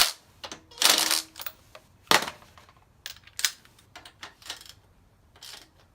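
Irregular clicks and clanks of hand tools and metal engine parts being handled, with a longer rattle about a second in and a sharp knock about two seconds in.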